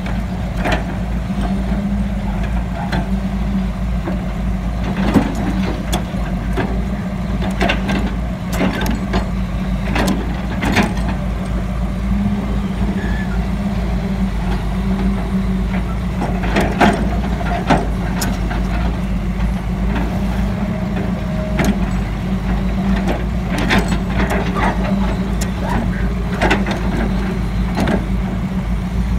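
Hitachi UH081 hydraulic excavator's diesel engine running steadily as it loads soft sand into a tipper truck, with frequent sharp clanks and knocks over the drone.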